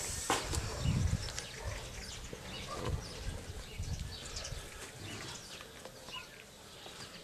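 26-day-old St. Bernard puppies feeding from plastic bowls, snuffling and lapping, with a few low dull thuds.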